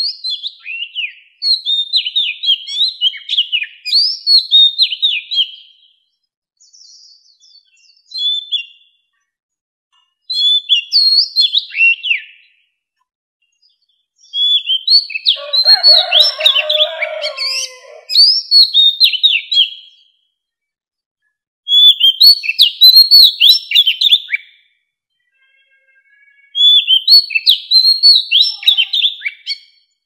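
Mature wild oriental magpie-robin singing: loud bouts of quick, varied whistled notes, each a few seconds long, separated by short pauses. One bout about midway also carries lower, rougher notes.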